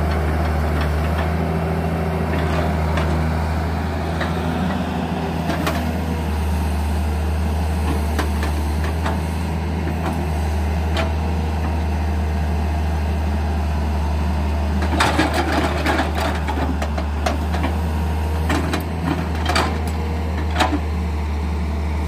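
Caterpillar E120 hydraulic excavator's diesel engine running steadily. Later on it is joined by a run of sharp knocks and clatter as the bucket works the soil and rocks.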